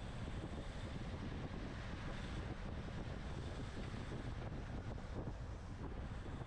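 Wind rushing steadily over the microphone of a camera on a road bike ridden at race speed.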